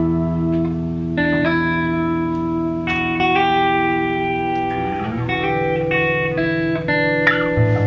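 A rock band's electric guitars playing an instrumental passage, with ringing chords that change every second or so over low notes.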